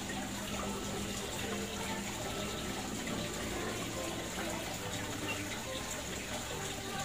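Steady sound of running water, with a faint steady low hum under it.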